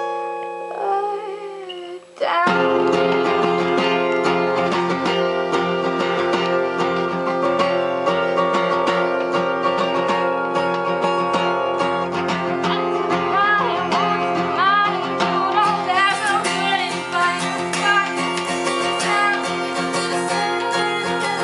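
Steel-string acoustic guitar, capoed, strummed and picked with a woman singing over it. The sound breaks off briefly about two seconds in, then strumming and singing start again at full level.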